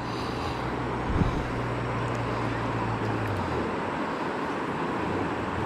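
Steady rush of river water with wind rumbling on the microphone, and a brief thump about a second in.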